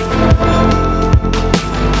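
Background music: an electronic track with a steady drum beat under sustained chords.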